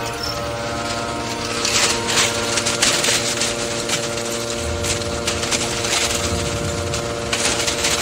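Scrap metal shearing baler and its feed conveyor running with a steady machine hum, while crumpled metal scrap tips off the conveyor into the hopper with irregular rattling crashes, loudest about two to three seconds in.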